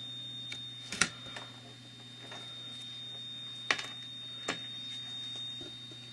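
Steady electrical hum with a thin, high, steady whine from the powered Silver Bullet cutting plotter standing idle between cuts. Three sharp clicks stand out, about one, three and a half, and four and a half seconds in.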